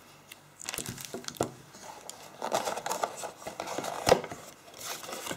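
Packaging handled during unboxing: crinkling plastic wrap with many small clicks and knocks as items are lifted out of the box, starting about a second in.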